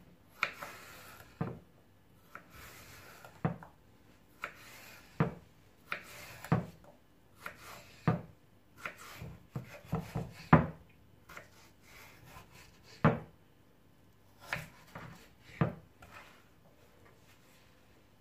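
Kitchen knife cutting a cucumber into strips on a wooden cutting board: irregular knocks of the blade meeting the board, about one a second, with soft scraping of the blade and cucumber between them.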